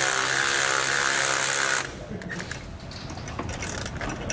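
Cordless right-angle ratchet running steadily for about two seconds as it spins a nut down on a mounting bolt, then stopping; light clicks of tool handling follow. The nut is only being snugged to take out play, not fully tightened.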